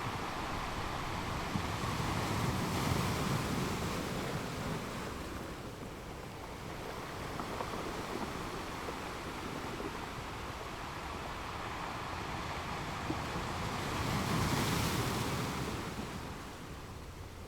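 Sea waves washing, with wind on the microphone; the wash swells up twice, about three seconds in and again near the end.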